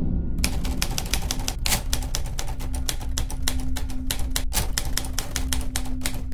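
Typewriter keys clattering in a fast, uneven run of clicks, starting about half a second in. It is a typing sound effect for text being typed out, laid over a steady low hum.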